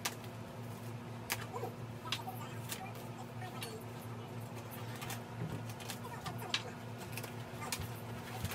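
Scattered sharp clicks and crinkles of plastic wrap and foam packing being pulled and cut off a new electric scooter, over a steady low hum.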